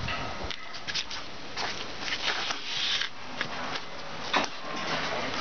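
Rope rubbing and scraping as it is hauled hand over hand, with irregular clicks and ticks and one sharper knock near the end.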